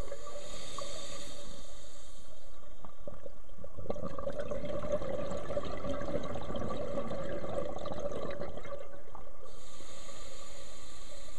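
Scuba diver breathing through a regulator: a hissing inhale at the start, a long bubbling exhale through the middle, and the next hissing inhale beginning near the end.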